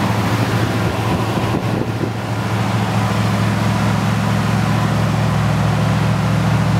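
A 1977 Ford Bronco's 302 V8 with dual exhausts idling steadily after a cold start, running smoothly.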